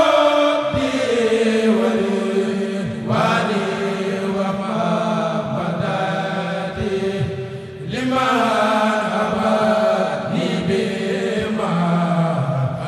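A kourél group chanting a khassida, an Arabic devotional poem, in unison with long held notes. New sung lines begin about three seconds and eight seconds in.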